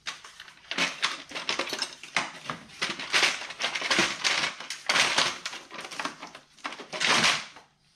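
Irregular clicking, rattling and scraping of plastic and metal engine parts handled by gloved hands while the top of the engine is being stripped, with a few louder scrapes.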